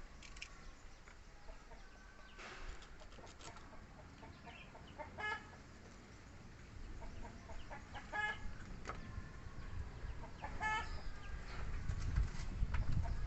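Short animal calls, each a quick run of pulsed notes, repeated about four times a few seconds apart, over a low rumble that grows louder near the end.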